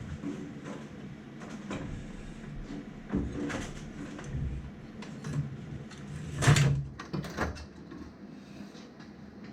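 Scattered clunks and knocks of tools and parts being handled during engine disassembly, the loudest about six and a half seconds in.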